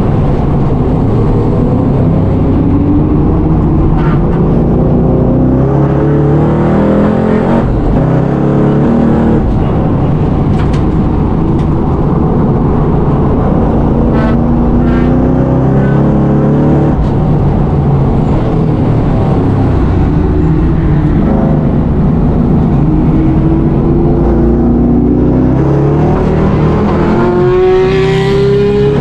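Supercharged LS7 V8 of a Holden VF Commodore race car at full racing pace, heard from inside the cabin. The revs climb and break off again and again through upshifts, and fall away under braking. Near the end a whine rises steeply in pitch.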